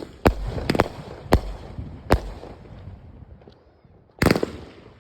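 A 28-shot consumer firework cake firing off a series of sharp bangs, several in quick succession in the first couple of seconds. After a short lull, another cluster of bangs comes about four seconds in.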